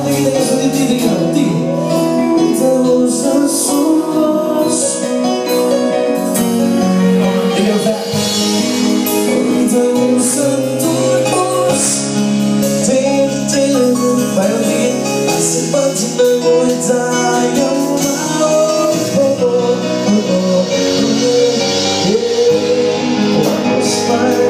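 Music: a song with singing over instrumental backing and a steady beat.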